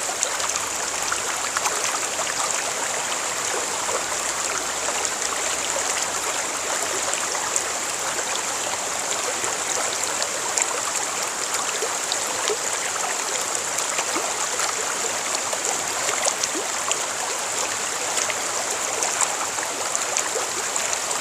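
Stream water flowing and babbling steadily, with many small splashes and trickles throughout.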